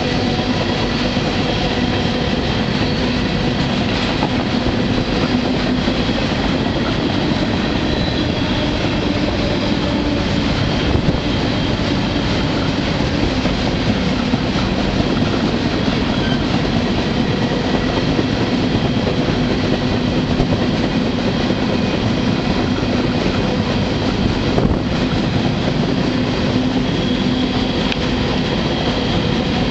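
Canadian Pacific freight train rolling at speed, heard from aboard a car: a steady loud rumble and rattle of steel wheels on rail, with a faint thin whine running over it.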